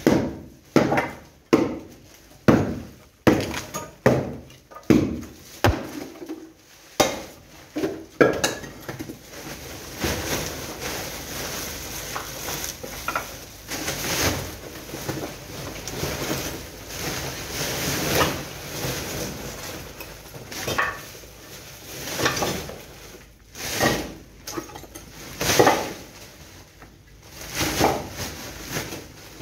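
Broken plaster and rubble clattering into plastic rubble sacks as it is bagged by hand. Sharp knocks come about every half-second to second for the first several seconds, then give way to a stretch of rustling and scraping, with a few more clattering drops near the end.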